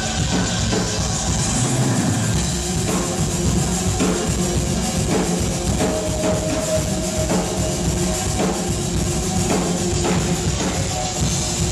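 Live band playing loudly and steadily: a drum kit keeping a regular beat under sustained synthesizer keyboard and electric guitar tones.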